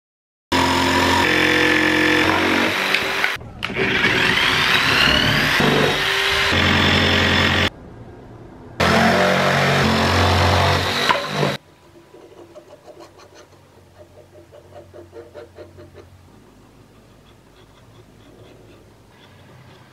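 Handheld electric jigsaw cutting plywood, running loud and steady for about seven seconds, dropping off briefly, then cutting again for about three seconds before it stops. Faint quick scratching follows, as of a pencil marking the wood.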